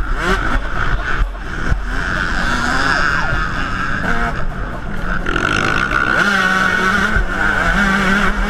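Yamaha YZ125 two-stroke motocross bike engine revving hard, its pitch rising and falling with throttle and gear changes, then held more steadily at high revs for the last few seconds, heard from the rider's helmet camera.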